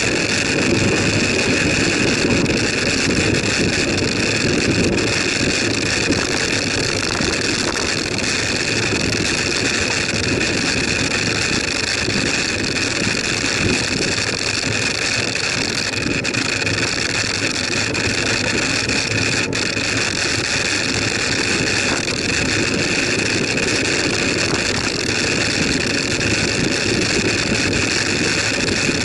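Steady rush of wind on the microphone of a bicycle-mounted camera, with the hum of bicycle tyres rolling on tarmac.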